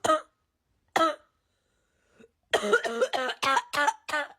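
A person coughing in imitation of anime characters: a single cough, another about a second later, then a quick run of about seven short coughs near the end.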